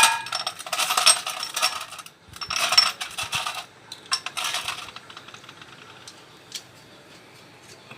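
Small metal objects clinking and clattering as they are handled, in three bursts over the first five seconds, then only a few faint ticks.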